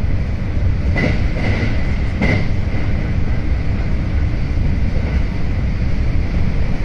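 Electric train running at about 105 km/h, heard from inside the passenger cabin: a steady rumble and rush of wheels and air. Two brief sharp whooshes come about a second and two and a half seconds in as the train passes through a station.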